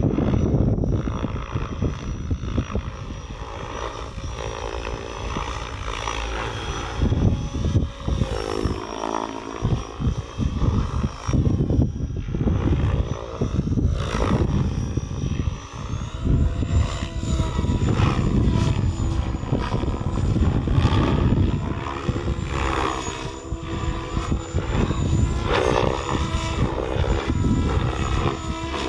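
Goblin Kraken 580 electric RC helicopter flying 3D aerobatics: its main rotor blades chop and swish through constant pitch changes over the whine of its brushless motor and drive, which rises and falls as the load shifts.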